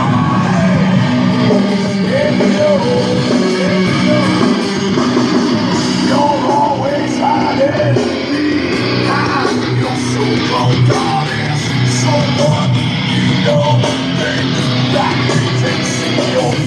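Rock music with guitar and singing, played loudly through a bagger motorcycle's sound system.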